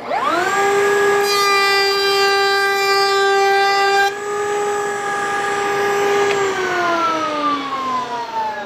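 Table-mounted router with a 3/8-inch roundover bit spinning up to a steady high whine. For about three seconds it cuts a test roundover along the edge of a board, the whine harsher while the bit is in the wood. Near the end it is switched off and the whine falls in pitch as the motor spins down.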